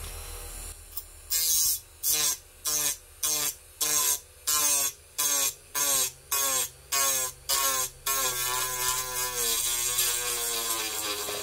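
Dremel rotary tool with a sanding drum grinding into the thick styrene of a model truck bed side, cutting away the edge. It touches in short, quick passes, about two a second, with the whine dipping in pitch each time, then grinds steadily for the last few seconds.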